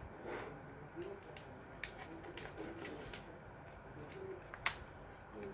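A few light, scattered clicks and ticks of hard plastic being handled as the nose cap of a WEN rotary tool is unscrewed to fit the flex shaft.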